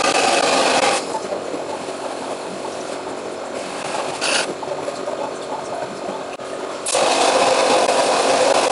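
Wet blasting gun spraying a water-and-abrasive slurry onto engine parts: a loud, rough hiss that drops away about a second in, gives one short burst around four seconds, and comes back on near seven seconds.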